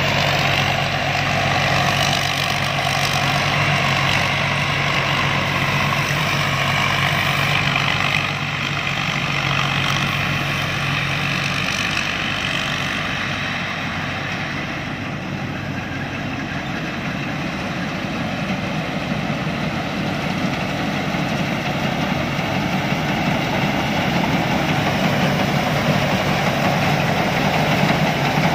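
Combine harvester's engine running steadily, a little quieter in the middle and louder again near the end.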